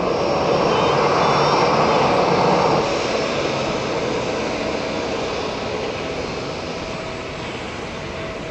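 Rolls-Royce Trent 700 jet engines of an Airbus A330-300 running at taxi power as the airliner turns onto the runway to line up for takeoff. It is a steady jet rumble, loudest for the first few seconds and then slowly fading.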